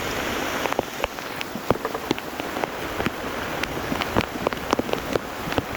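Rain falling, with many separate heavy drops striking close by over a steady hiss of rainfall. The hiss thins a little about a second in.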